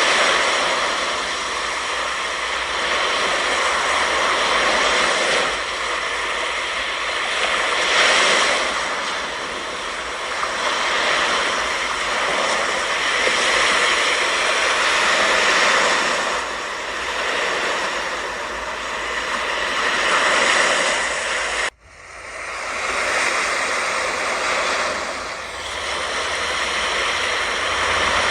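Ocean surf on the beach: a steady rushing of breaking waves that swells and eases every few seconds. It cuts out abruptly about three quarters of the way through and builds back.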